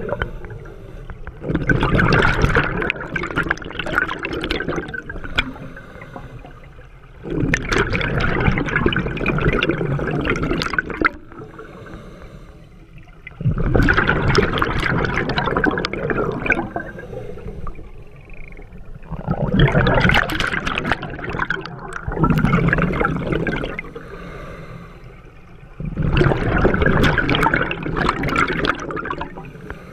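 Scuba diver breathing through a regulator underwater: loud bursts of exhaled bubbles about every five to six seconds, six in all, with quieter spells between breaths.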